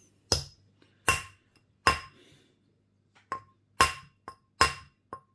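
Rawhide hammer gently tapping the edge of a 2 mm aluminium washer down onto a stainless steel ring mandrel: about eight separate taps, under a second apart, some fainter than others, each with a short metallic ring.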